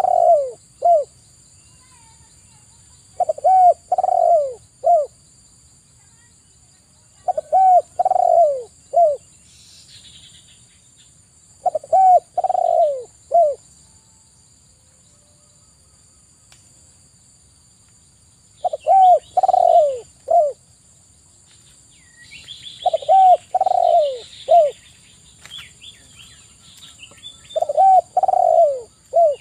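Spotted dove cooing: a phrase of three or four low coos, the last one short, repeated about every four seconds, with one longer pause partway through. Small birds chirp faintly in between.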